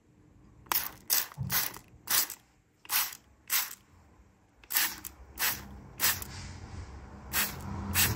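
Trigger spray bottle squirted about eleven times at uneven intervals, each pull a short hiss of water mist onto a water-repellent-treated jacket.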